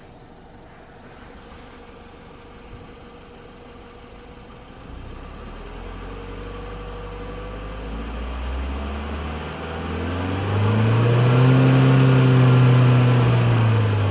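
2014 BMW 116i (F21) engine rising in pitch and loudness over several seconds, holding loudest near the end, then starting to fall, as when it is revved. The owner counts it among the car's strange noises.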